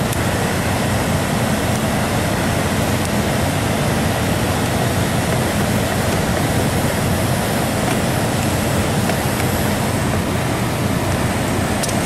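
American Standard air handler running with its electric heat on: a steady rush of the blower with a low hum underneath. It is running normally, with its return duct reconnected and new high-temperature cutouts fitted.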